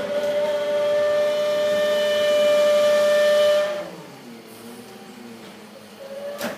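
Rear-loader garbage truck's hydraulic packer cycling with the engine throttled up: a loud, steady high whine that winds down a little before four seconds in as the cycle ends. Near the end comes a brief rising whine and a sharp knock.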